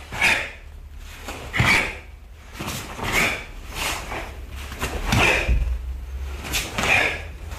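Karate gi snapping with each punch, block and turn as a student performs the kata Heian Shodan at full speed, about six sharp swishes roughly every second and a half, with a few dull foot thuds on the tatami mat.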